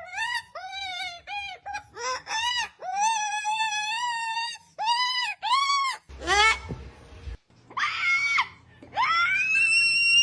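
Parrot vocalising: a run of short whining, rising-and-falling calls and a long held whine, like mimicked crying. Near the end comes a long, high, steady screech.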